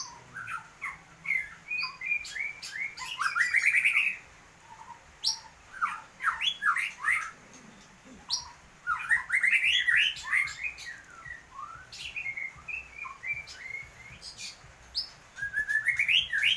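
White-rumped shama (murai batu) singing in full song: several bursts of quick, varied whistles, trills and rising notes, mixed with sharp clicks, with short pauses between bursts.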